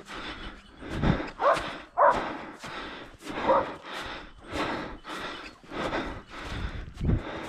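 Footsteps crunching through snow, about two a second, while a hunting dog barks a few times, loudest near the start.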